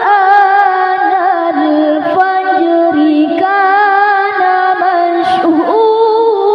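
A woman's high voice reciting the Quran in the melodic qari'ah style, holding long notes with wavering ornaments into a handheld microphone, with a short break about five seconds in.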